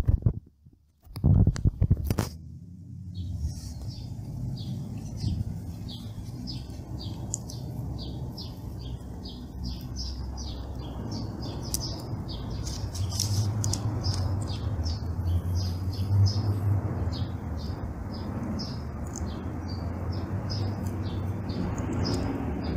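A bird chirping over and over, a few short high chirps a second, over a low steady hum that grows a little louder after about twelve seconds. The first two seconds hold a loud burst of noise, broken by a brief dropout.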